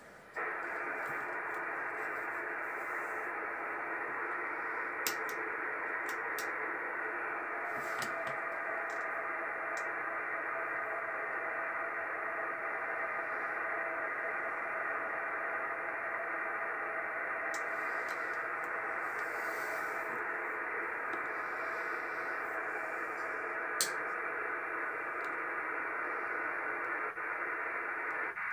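Yaesu FT-450D transceiver's speaker hissing with steady static on an open 11-metre channel with no station on it, starting just after the start. A few faint clicks sound over it, about 5, 8 and 24 seconds in.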